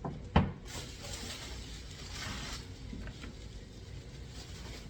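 A sharp knock, then soft, uneven rustling of packaging as the contents of a just-opened box are handled.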